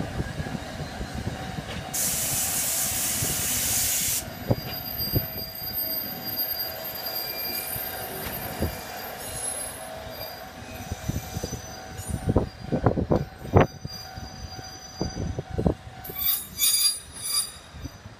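Fukui Railway 880-series articulated tram pulling away from a stop. About two seconds in there is a loud hiss lasting about two seconds. Then comes a thin, high-pitched wheel squeal as the tram rounds a curve, with low knocks and thumps that grow more frequent toward the end.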